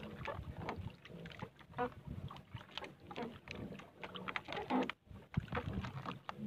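A fishing handline being hauled in by hand and wound onto a spool aboard a small paddled boat: irregular light knocks, rustles and small splashes.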